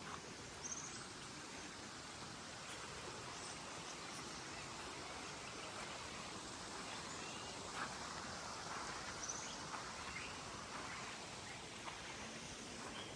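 Steady outdoor background hiss of a forest campsite, with a few short, faint bird chirps.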